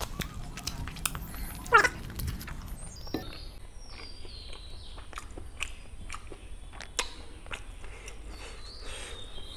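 Close-up eating sounds: wet chewing, lip-smacking and finger-sucking, with a metal spoon scooping and tapping gravy onto the plate. About two seconds in comes a short high squeal that falls in pitch, the loudest sound.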